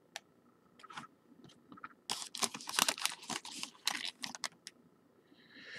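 Trading cards and their pack wrapper being handled: a few faint clicks, then a busy run of short rustles and crackles for about two seconds, and a soft hiss near the end.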